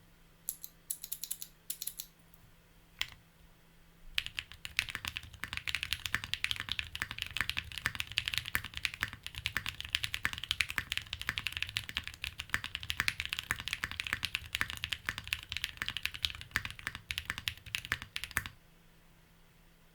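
Typing on a Wind Studio X65 mechanical keyboard with lubed Durock T1 tactile switches, lubed stabilizers and GMK keycaps, the case filled with foam. A few short bursts of keystrokes come in the first three seconds. Fast, continuous typing then runs from about four seconds in and stops suddenly near eighteen seconds.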